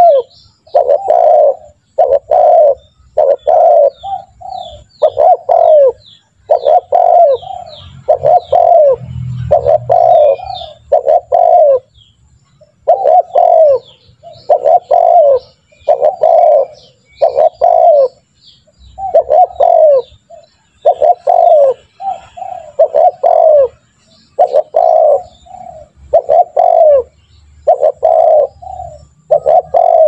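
Spotted dove cooing over and over, its low throaty notes coming about once a second with a couple of short pauses.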